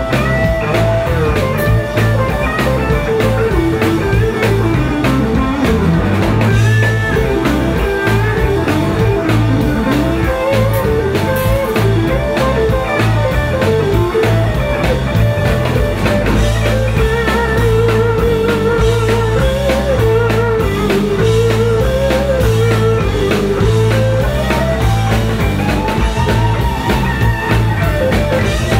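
Live blues-rock band playing: a lead electric guitar runs bent notes with vibrato over electric bass and a drum kit, loud and continuous.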